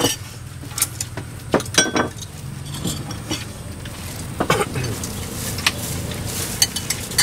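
Rice bowls and eating utensils clinking at a meal: a dozen or so sharp, irregular clicks and knocks over a steady low hum.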